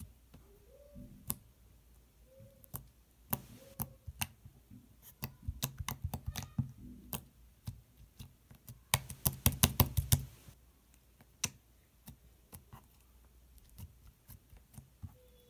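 Fingers poking and pressing a fluffy slime, making sharp clicks and small pops, with a quick run of clicks about nine to ten seconds in.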